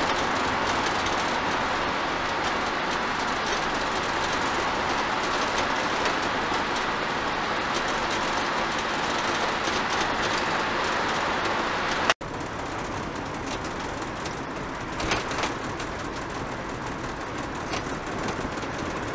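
Road noise inside a moving motorhome's cabin: a steady rumble and hiss of tyres and engine at motorway speed. About twelve seconds in it drops suddenly to a quieter, lower-speed drive with a few faint knocks.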